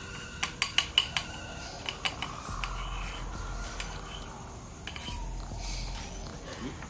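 A metal utensil clinking against a small metal cup while flour batter is stirred: a quick run of about six clinks starting about half a second in, then a few lighter taps around two seconds in.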